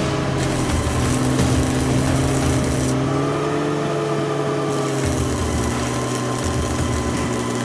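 Farmall tractor engine running steadily to drive a PTO welding generator, with the crackle of stick welding over it. The crackle stops about three seconds in, the engine picks up slightly, and the welding resumes near five seconds.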